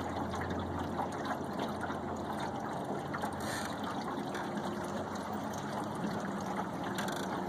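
Water trickling and lapping along the hull of a small fishing boat moving slowly, with a faint low steady hum underneath.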